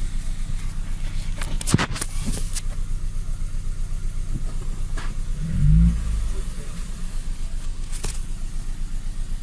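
Car engine running at idle with an even, rhythmic pulse, being test-run with a repaired ECU. It swells briefly louder for about half a second a little past the middle, and a few sharp clicks sound around two seconds in and near the end.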